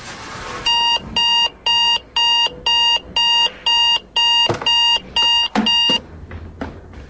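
Electronic alarm beeping in a steady pattern, about two short beeps a second, eleven in all, stopping about six seconds in.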